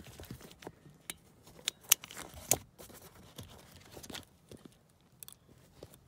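Sharp plastic clicks and scraping from a Toyota Prius V rear seat belt buckle's latch mechanism as its spring is worked off by hand. The loudest clicks come about two seconds in and again half a second later.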